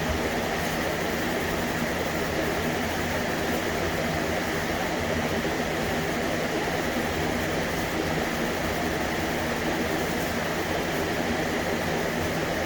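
Steady mechanical hum and hiss of a running machine, unchanging throughout with no rhythm of strokes.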